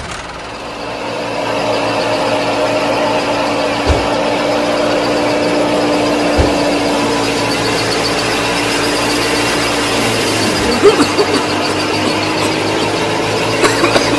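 Small motor of a miniature tractor-and-thresher model running with a steady high whine. It builds up over the first couple of seconds, with a couple of light knocks midway and a few clicks near the end.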